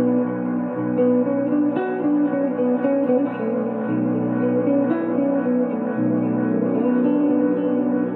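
Electric guitar improvising a slow line through reverb and echo effects, its sustained notes ringing on and blending into one another, with a new note about every second.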